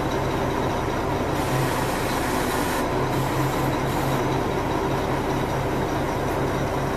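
The 1998 Mack RD688S roll-off truck's diesel engine running steadily with a pulsing low hum while its hydraulic roll-off hoist is worked from the side levers. A brief hiss joins in about a second and a half in, and again about three seconds in.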